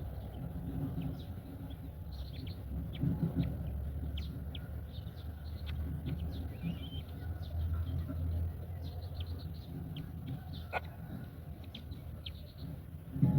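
Birds giving many short, high chirps over a steady low rumble of wind, ending with a loud thump.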